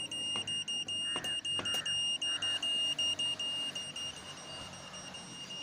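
Handheld YSM999DX satellite finder meter beeping: a high-pitched tone pulsing in quick, even beats. Such a meter beeps like this when it has locked onto a satellite signal.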